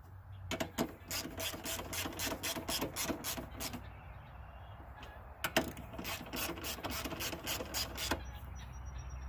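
Hand ratchet wrench clicking rapidly as fasteners are turned on an ATV, in two runs of about three seconds each with a short pause between.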